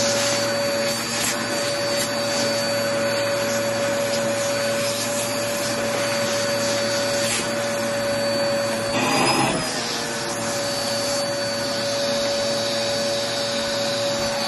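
Vacmaster bagless upright vacuum cleaner running steadily with a high motor whine, with scattered crackles of crunchy debris being sucked up. About nine seconds in there is a brief surge of noise as the whine shifts in pitch for a moment.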